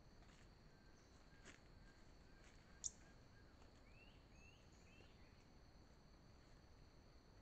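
Faint forest ambience: a steady high-pitched drone under a run of short repeated bird notes about a second in, a single sharp click just before three seconds, then three short rising bird chirps about four seconds in.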